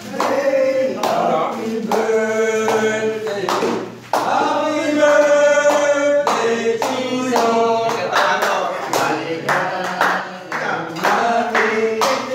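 A group of men singing a birthday song together, clapping along in time, with a short break about four seconds in.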